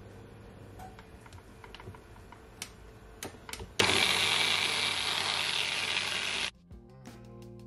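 A personal blender runs at full speed for under three seconds, puréeing cucumber and ginger with a little water, then cuts off suddenly. A few light clicks come before it starts.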